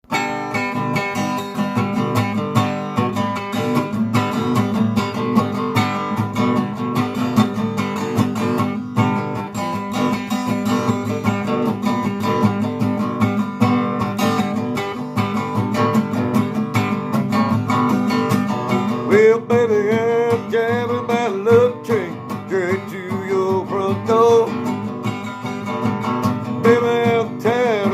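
Acoustic guitar strumming steady chords as a song intro; about two-thirds of the way in, a wavering melody line joins over the strumming.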